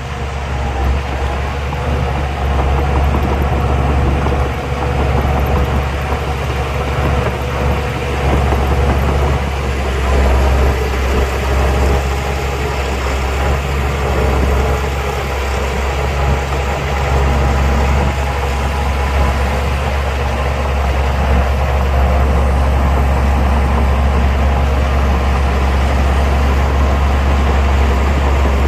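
Heavy diesel engine of earthmoving machinery running steadily, a deep low rumble with no breaks.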